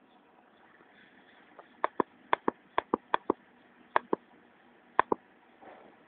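A series of sharp clicks in quick pairs, about six pairs over three seconds, with low room background between them.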